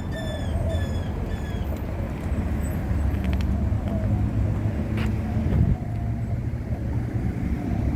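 Outdoor city ambience: a steady low rumble, with three short high chirps in the first two seconds.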